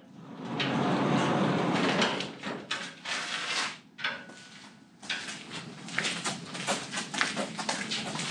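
A corrugated sheet-metal barn door being pushed and dragged, rattling and scraping loudly for about two seconds, with a few clatters after it. Then footsteps on the floor, a string of short knocks from about five seconds in.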